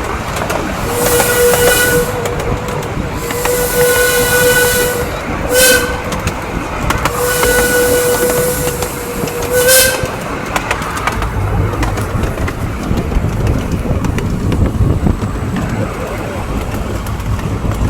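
Steam locomotive whistle sounding five blasts in the first ten seconds, three long and two short, with a hiss of steam over each blast. After that the train runs on with a steady rumble from the cars on the rails.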